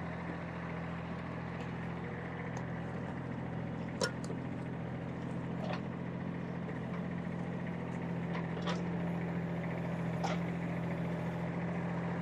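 Kubota diesel engine running steadily at a low idle, with a few faint sharp knocks scattered through it.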